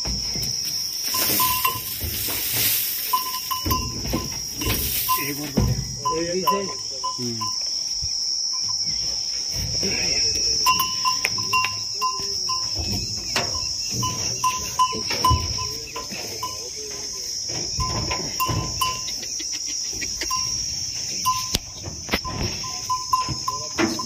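Insects chirring steadily on one high pitch, with irregular knocks and shuffles as cattle shift their hooves on the truck bed.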